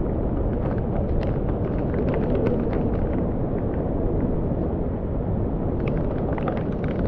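Muddy floodwater rushing down a rocky mountain trail in heavy rain: a steady, loud rush of water, with scattered light ticks and splashes over it.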